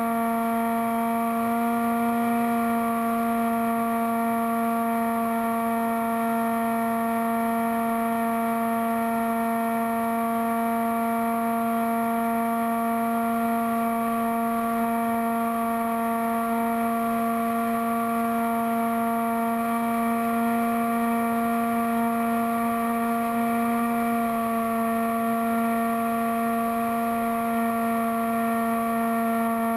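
Bixler foam RC plane's electric motor and propeller running at steady cruise throttle, heard from a camera on the plane: a steady, unchanging whine.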